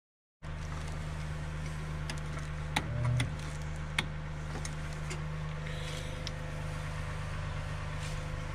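A car engine idling with a steady low hum, with a few sharp clicks and knocks about three and four seconds in.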